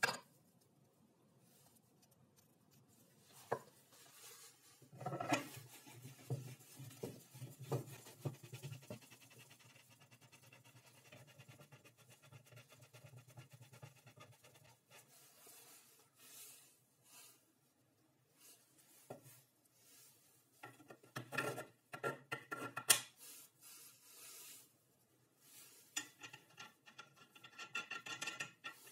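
Parts of a homemade wooden bar clamp being handled and fitted together: wooden blocks knocking and sliding on a wooden workbench, and a steel threaded rod turned by its wooden handle, rubbing and scraping. A sharp knock stands out about two-thirds of the way through.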